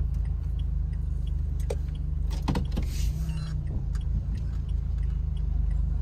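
Car engine running at low speed, heard inside the cabin as a steady low hum. A few clicks and a short rustle come about two and a half to three seconds in.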